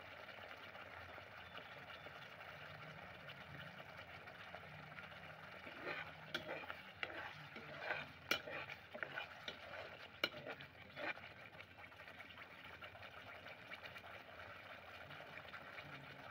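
Thick rajma curry masala sizzling steadily in a large pot. A spatula scrapes and knocks against the pot in a burst of sharp clicks from about six to eleven seconds in.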